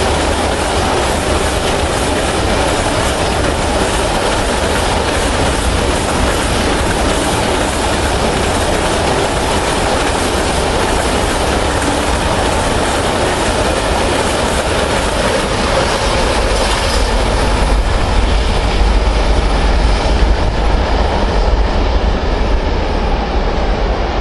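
Freight train of hopper wagons rolling past close by: a loud, steady rumble and clatter of steel wheels on the rails. In the last few seconds the hiss thins out and a deeper rumble takes over as the end of the train draws away.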